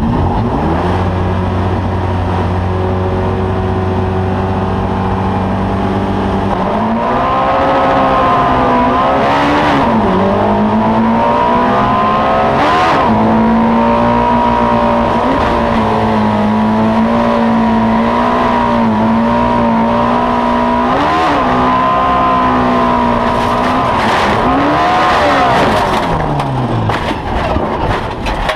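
Race car engine heard from inside the cockpit, held at steady revs at first, then running hard at high revs with brief dips as the driver lifts or shifts. Near the end the engine note falls away and the sound turns ragged as the car goes off the track and rolls over.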